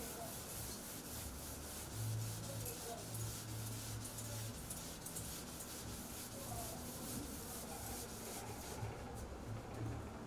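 Chalkboard being wiped with a board eraser: quick back-and-forth rubbing strokes, a steady scratchy hiss that stops near the end.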